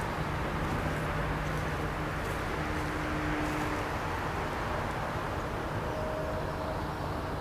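Steady low rumble of distant engine noise with a faint hum through it.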